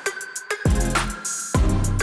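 Background music with a steady beat: deep bass-drum notes and quick hi-hat ticks.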